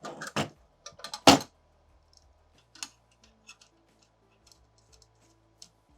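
Metal clicks and clinks of mounting hardware being handled, with a cluster of knocks in the first second and a half, the loudest about a second in, then scattered light ticks.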